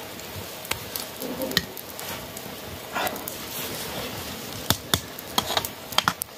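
A pot of rice bubbling over an open wood fire, with sharp crackles from the burning wood and a metal ladle clinking and scraping in the pot as it is stirred; the clicks come more often near the end.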